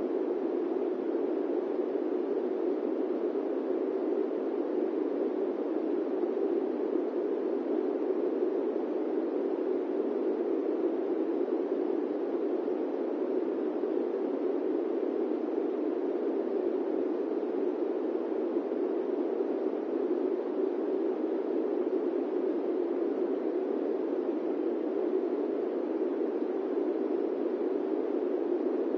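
Electric fan running: a steady, low rushing noise with no rise, fall or breaks.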